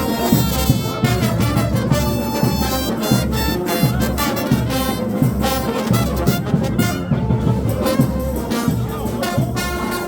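Frevo orchestra playing live: trumpets and trombones carrying a brassy melody over a steady percussion beat.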